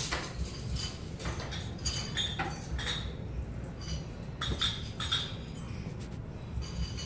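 Restaurant tableware clinking: cutlery and dishes knocking and chinking in scattered short strikes, over a steady low hum.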